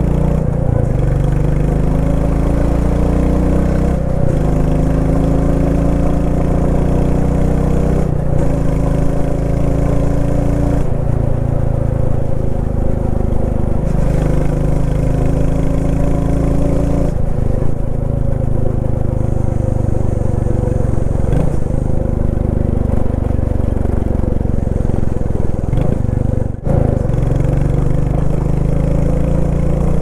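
Royal Enfield Classic 350 single-cylinder engine and exhaust running under a rider, its note climbing in pitch in several separate pulls, each one breaking off before the next begins, with a brief drop in the sound near the end.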